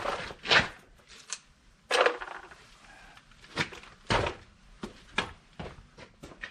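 Irregular knocks, clicks and rustles as a box of new brake pads is picked up and handled, about ten separate sounds with the loudest near the start, about 2 seconds in and about 4 seconds in.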